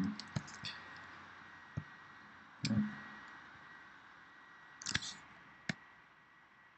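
A handful of separate computer mouse clicks, with a short cluster about five seconds in, over faint background hiss.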